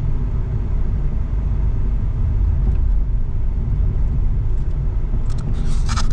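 Steady low rumble of a car driving at moderate speed, heard from inside the cabin: engine and tyre noise. A short burst of clicking comes near the end.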